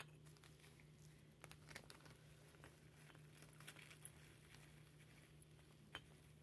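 Faint crinkling of a plastic bag as potting soil is tipped from it into a small terracotta pot, a scattering of soft crackles and clicks.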